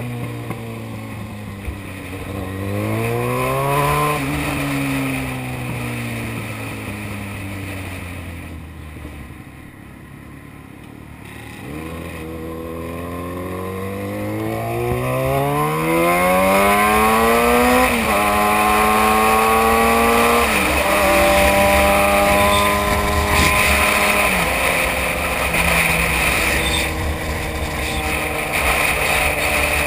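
Sport motorcycle engine under way: it revs up briefly, eases off and slows through the first half, then pulls hard, its pitch climbing and dropping suddenly twice as it shifts up. Steady wind rush on the microphone throughout.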